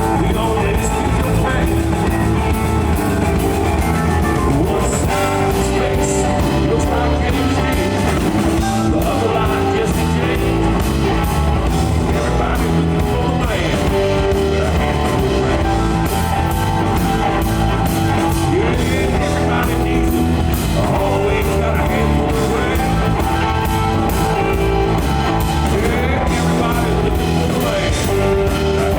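A live blues-rock band playing an instrumental passage: guitar lines over bass and drum kit with a steady beat.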